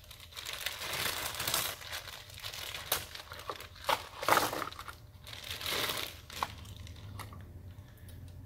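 Clear plastic parts bag crinkling and rustling in gloved hands as small parts are taken out, with a few sharper crackles. It dies down after about six and a half seconds.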